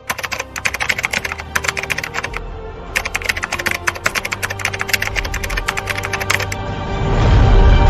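Rapid clicking like fast keyboard typing, in two runs with a short break, over background music; a swelling whoosh builds near the end.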